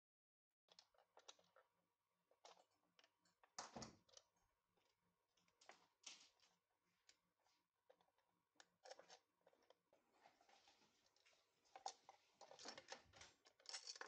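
Faint clicks, taps and light rattles of small hardware being handled on a workbench: screws, a metal mounting bracket and a plastic electronics enclosure. The clicks begin under a second in and come in a denser cluster near the end.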